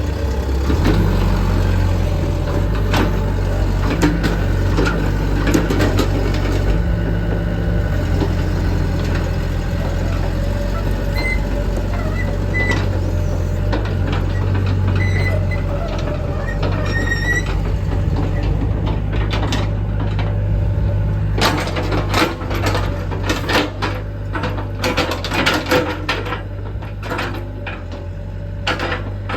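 Sany SY75C excavator's diesel engine running, its low hum stepping up and down in pitch. From about two-thirds of the way in, a run of sharp knocks and clanks.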